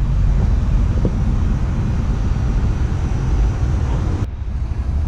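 Wind buffeting the microphone: a steady, uneven low rumble with a hiss above it. The hiss drops away abruptly about four seconds in.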